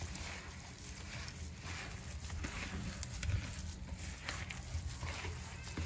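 Hands kneading and rubbing damp coarse semolina dough against a glazed clay bowl: soft, irregular gritty scraping. The semolina is being worked until it takes up the oil and leben.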